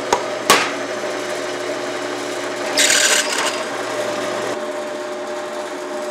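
Drill press motor running steadily while drilling bolt holes through welded aluminum angle, with a brief high-pitched cutting burst about three seconds in as the bit bites into the aluminum. A single sharp tap, a center punch being struck, comes about half a second in.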